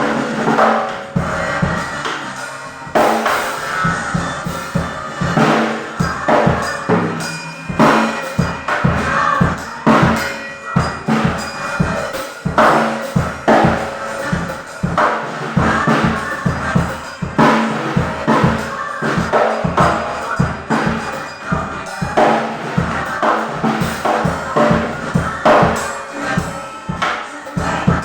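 Glorious CVR drum kit played continuously during a sound check, with fast, steady strikes of bass drum and snare, including rimshots.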